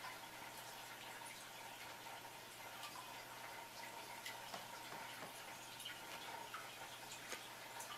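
Faint room tone: a steady hiss with a thin steady hum, broken by a few scattered soft ticks.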